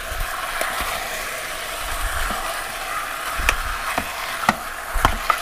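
Pork pieces sizzling steadily as they brown in the sauté mode of a Cosori 2-quart electric pressure cooker. A spatula clicks and scrapes against the inner pot several times in the second half.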